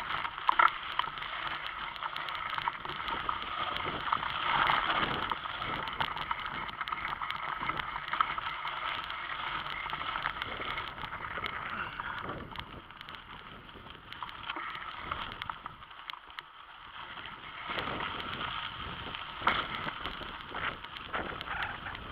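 Bicycle riding over a dirt and gravel path, picked up by a camera mounted on the bike or rider: steady rolling noise with many small knocks and rattles as the wheels go over bumps, easing off briefly for a moment past the middle.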